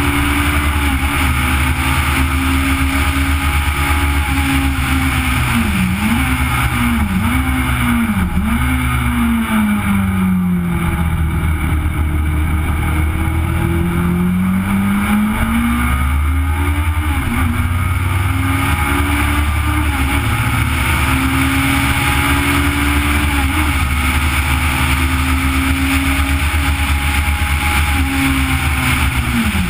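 A Legend car's Yamaha four-cylinder motorcycle engine at racing speed, heard from the car itself over wind and road noise. The engine note dips sharply three times between about six and eight seconds in, sinks and climbs back slowly around the middle, then rises and holds high.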